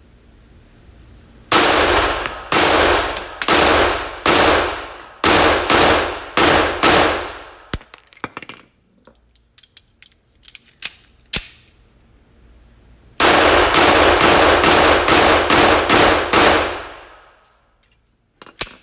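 1911 pistol firing two strings of shots, each shot trailing off in an echo. The first string has about nine shots at an uneven pace; after a pause with a few faint clicks comes a faster string of about eight or nine, roughly two a second.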